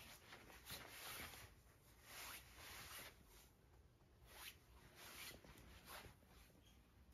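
Faint rustling: a series of short, soft swishes, several of them, irregularly spaced.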